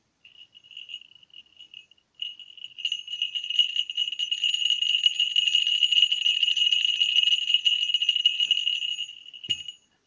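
Small 18 mm falconry bell shaken by hand, ringing with a steady high jingle. It is faint and broken for the first two seconds, then rings continuously and louder, and ends with a knock near the end.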